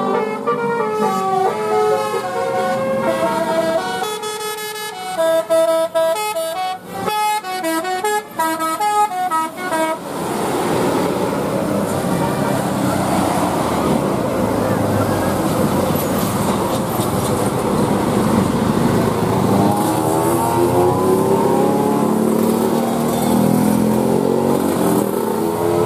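Indonesian 'telolet' multi-tone bus horn playing a tune as a run of held notes at changing pitches for about ten seconds. Then it gives way to a loud, steady rushing noise for the rest.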